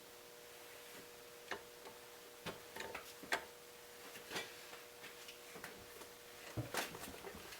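Faint, irregular metallic clicks and ticks from 180 mm Knipex Cobra pliers' jaws gripping and shifting on a hardened socket head cap screw head as the tool is levered against a fastener too tight for it to loosen. A faint steady hum runs underneath.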